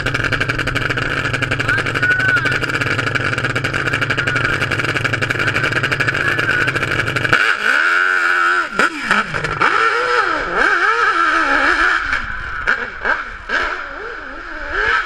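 Nitro-fuelled 600cc Suzuki hill-climb motorcycle engine running steadily at the start line. About seven seconds in it launches, and its revs rise and fall sharply as the throttle is worked on the climb, then it grows fainter near the end.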